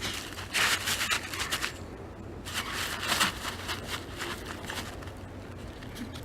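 Dogs' paws crunching and scraping through snow, in two bursts each about a second long.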